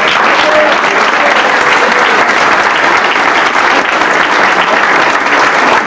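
A roomful of people applauding steadily, a dense run of hand-clapping.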